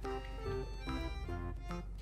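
Background music: a melody of short notes changing every few tenths of a second.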